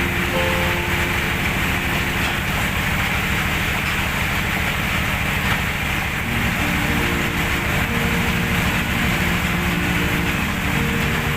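Colt Diesel 100 PS diesel engine running steadily at speed, driving a well-drilling rig, with a fast, even firing beat.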